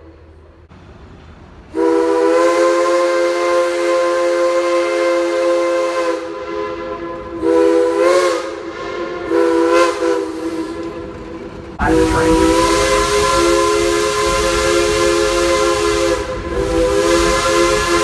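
Steam locomotive's chime whistle blowing a chord of several tones with steam hiss: a long blast, two short blasts, the first bending in pitch, then another long blast over a low rumble.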